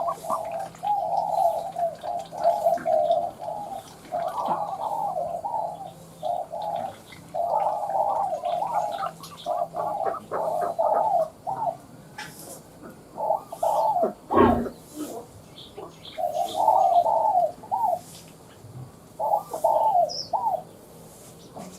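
Spotted dove cooing over and over in short groups of low coos with brief gaps, a thin, narrow-toned voice of the kind kept as a lure call. A single sharp knock sounds about two-thirds of the way through.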